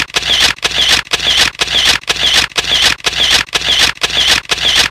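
A hissing noise repeating in even strokes about twice a second, each stroke the same shape and starting sharply: a looped sound effect.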